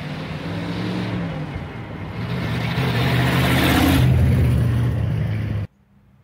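The 1971 Dodge Charger's engine running and revving, building up louder about halfway through, then cutting off suddenly near the end.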